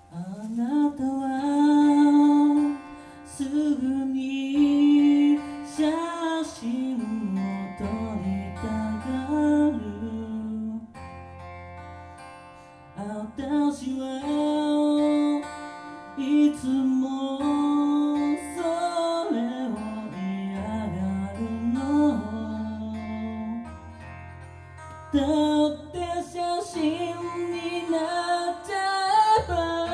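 A solo singer performing a song to their own acoustic guitar accompaniment, the vocal carrying the melody in phrases with short pauses between them.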